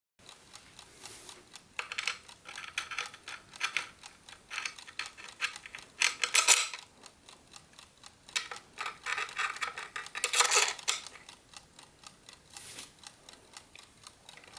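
Close-up handling of a wooden mechanical chess clock's parts during reassembly: rapid small clicks and knocks, with scratchy scraping bursts about two, six and ten seconds in.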